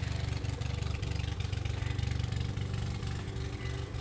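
Gas-powered walk-behind lawnmower running steadily while mowing grass.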